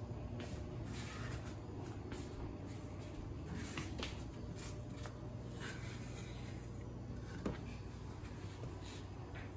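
Quiet kitchen handling: a few light clicks and knocks of cookware and utensils, the sharpest near the end, over a steady low hum.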